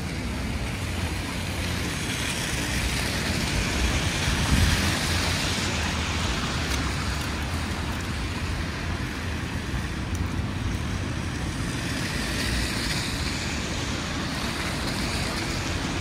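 City street traffic: a steady low rumble of engines with the hiss of tyres on a snowy road, swelling twice as vehicles pass, about three seconds in and again near the end.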